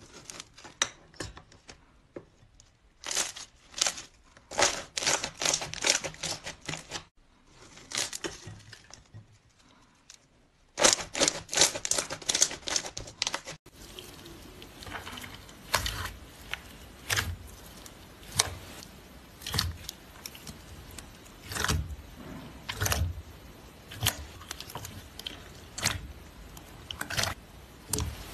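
Slime being pressed and squished by hand: a dense run of sharp crackling and popping clicks, then, about halfway through, a steady hiss with single sticky pops roughly once a second.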